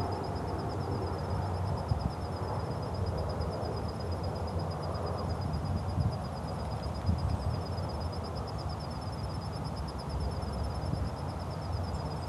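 Outdoor garden ambience: low rumbling wind noise on the microphone, with a steady, high, fast-pulsing trill above it.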